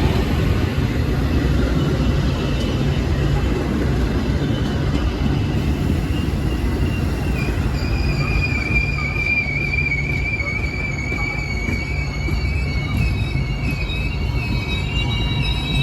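A train rolling along the tracks with a steady low rumble; about halfway through, a thin, wavering high squeal of the wheels against the rail sets in and keeps going.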